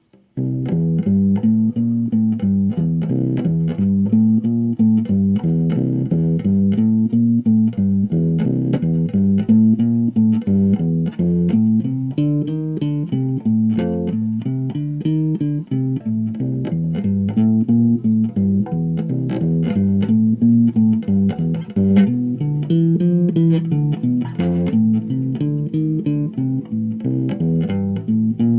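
Bass guitar played in a repeating phrase of low notes, with many sharp clicks and a buzzing over the notes that make it hard to play.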